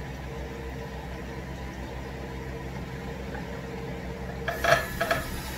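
A steady low mechanical hum, with a short burst of sharp clicks and rattles about four and a half seconds in.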